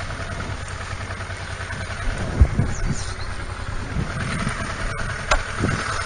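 Honda Deauville's V-twin engine idling steadily on the stationary motorcycle, with a single thump about two and a half seconds in.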